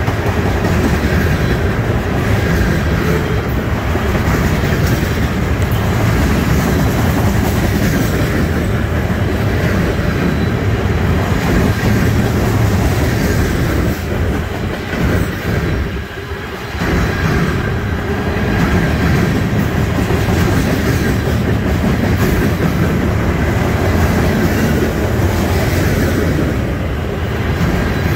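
Freight train of loaded waste-container flatcars rolling past close by: a steady rumble and clatter of steel wheels on the rails, with a brief lull a little past halfway.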